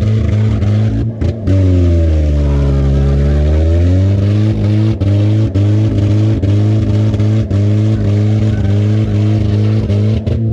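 Honda Civic four-cylinder engine run hard at high revs. The revs sag for a couple of seconds about one and a half seconds in, then climb back and hold steady. The engine has a rod knock and is being run to destruction.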